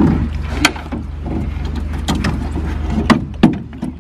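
Sharp metal knocks and clanks as a Tohatsu outboard motor is set onto and fitted to the transom of an aluminium boat, two of them close together near the end, over a steady low hum.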